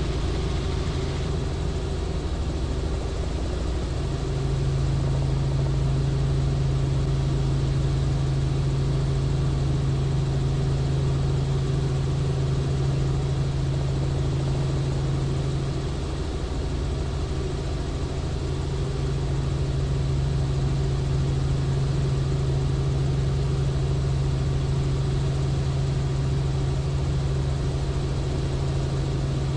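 Robinson R44 helicopter in cruise flight: a steady engine and rotor drone with a low hum. The hum strengthens about four seconds in and eases for a few seconds just past the middle.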